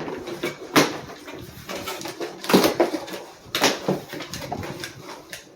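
A gift box being opened: packaging rustles and crackles, with a few sharper rips or knocks about one, two and a half, and three and a half seconds in.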